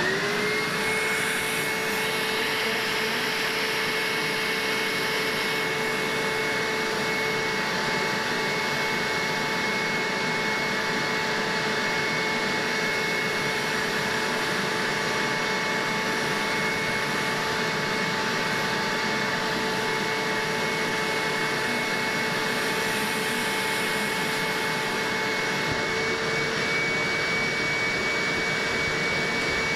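Hoover upholstery and carpet shampooer's suction motor spinning up and then running steadily with a high whine, as its upholstery hand tool is worked over a fabric couch cushion.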